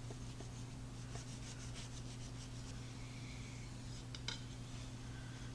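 Knife sawing through a flaky baked crescent-dough pastry on a wooden cutting board, a quick run of short rasping strokes, then two sharp taps of the blade on the board a little after four seconds in.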